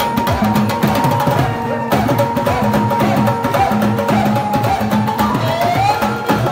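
Live devotional music: a dholak drum beating a quick rhythm over steady held notes, with sharp wooden clicks of dandiya sticks; a rising note comes in about five seconds in.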